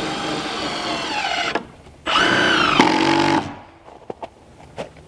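A handheld power drill runs twice, each run lasting about one to one and a half seconds and dropping in pitch as it slows to a stop. A few sharp clicks follow near the end.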